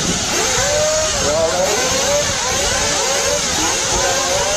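Several nitro-powered RC buggy engines running at once, their notes overlapping and rising and falling over and over as they rev up and drop back.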